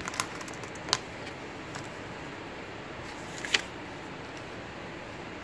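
A few short crinkles and clicks from a paper user's guide and its packaging being handled, the sharpest about three and a half seconds in, over a steady low hiss.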